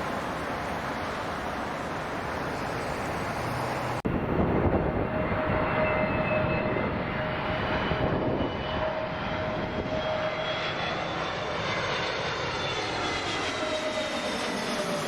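Jet airliner's engines passing by: a steady rushing roar with a held whine and thin higher tones, the whine sinking slightly in pitch near the end. Before that, about four seconds of even rushing noise that cuts off abruptly.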